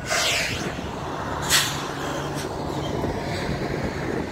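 Stopped diesel freight train idling, a steady low hum. Over it come short hissing bursts, one at the start and a sharper one about a second and a half in, which sound like air brakes.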